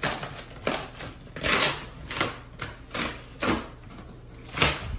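Packing tape being ripped off the seam of a large cardboard box, with the flaps pulled apart, in about eight short ripping strokes at uneven intervals, the loudest near the end.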